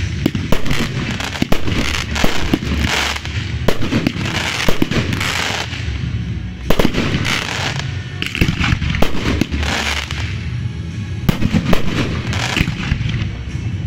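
Aerial firework shells of a professional display bursting in a rapid, uneven series of bangs and crackles.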